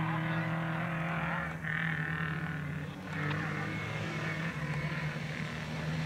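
Rally car engine approaching from a distance on the stage, its note breaking off briefly twice, about a second and a half and three seconds in, as it shifts gear or lifts.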